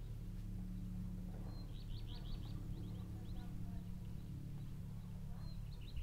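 Songbird singing quick high chirping trills, about two seconds in and again near the end, over a strange steady low hum.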